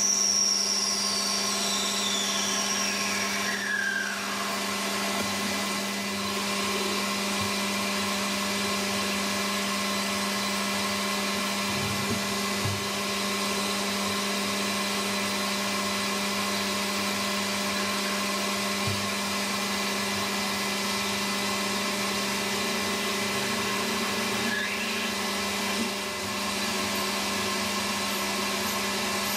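Metal lathe running steadily, with a hum of several even tones, as it machines a small brass part. A high whine falls in pitch over the first four seconds.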